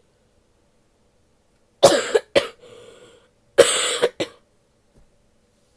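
A woman coughing while sick: two bouts, about two seconds in and near the middle, each a hard cough followed quickly by a short second one, with a faint breath drawn between the bouts.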